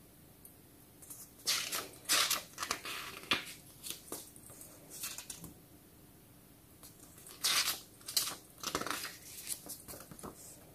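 Pages of a small paper storybook being turned and handled: crisp paper rustles in two spells, with a quieter stretch between them.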